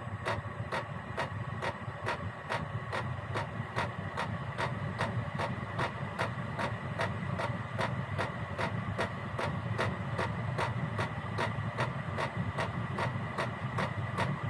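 Chinese diesel air heater (Gearlasso 8 kW) running at its lowest setting while warming up: the fuel dosing pump clicks evenly about three or four times a second over the steady whine of the combustion fan and the low rumble of the burner.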